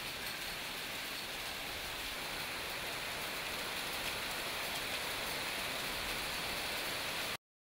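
Heavy rain mixed with hail pouring down steadily and pattering on hard surfaces. It cuts off suddenly near the end.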